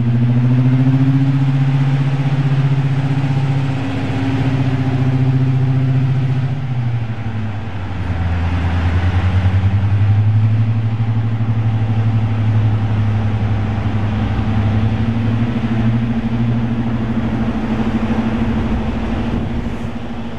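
Dubbed recording of a full-size diesel locomotive engine running steadily. Its note drops noticeably about seven seconds in, then rises a little.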